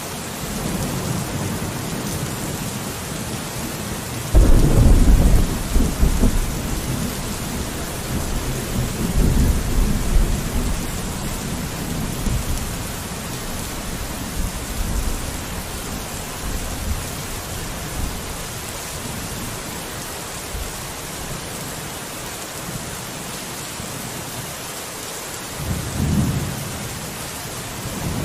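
Steady rain falling on a window, with thunder: a loud low rumble breaks in about four seconds in and rolls on for a few seconds, weaker rumbles follow around ten seconds, and another rumble comes near the end.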